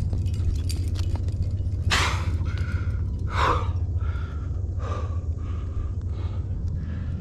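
A rock climber breathing hard with effort on lead: three loud, sharp breaths about a second and a half apart, the first the loudest, over a steady low rumble.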